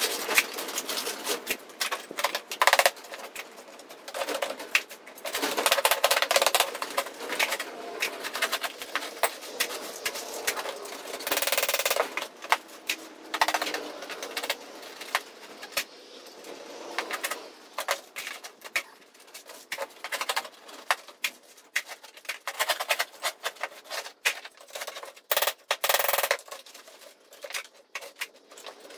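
Rapid, irregular clattering and scraping of steel offcuts and plasma-cut slag as they are shovelled and scraped out of a drained plasma-table water tray into a plastic tub, sped up by the time lapse.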